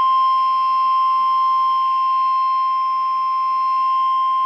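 Emergency Alert System warning tone: the single steady 1050 Hz NOAA Weather Radio alarm tone, held without a break. It signals that a warning message, here a severe thunderstorm warning, is about to be read.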